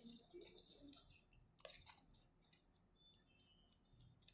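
Near silence with a few faint, short clicks, most of them in the first two seconds: small fan parts being handled during the oiling of a stiff SMPS cooling fan.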